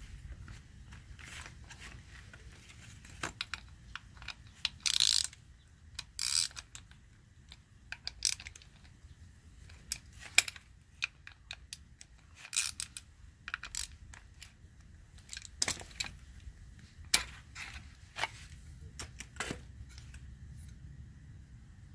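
Irregular small metal clicks, taps and scrapes of hand-work on a Porsche 996 Turbo spoiler's hydraulic lift unit: the aluminium housing being handled and a screw being turned into its bracket with a screwdriver. Two longer, louder sounds come about five and six seconds in.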